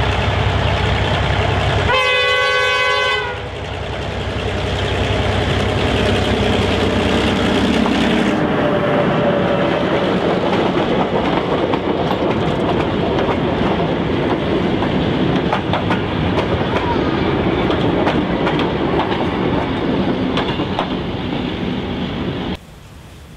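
Y class diesel locomotive with an EMD 567C engine passing under power, sounding its multi-tone horn once about two seconds in for just over a second. The engine then fades as the wagons and carriage roll by, wheels clattering and rattling over the track, until the sound stops abruptly near the end.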